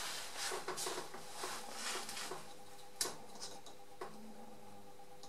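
Handling of small metal hand tools: rustling and scattered light clicks, then a sharp metal click about three seconds in and a softer tap about a second later as a micrometer is set against the lathe's parting tool tip. A faint steady hum runs underneath.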